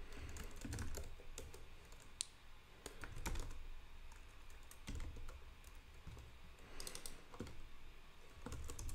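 Computer keyboard typing: faint, irregular keystrokes in short runs with pauses.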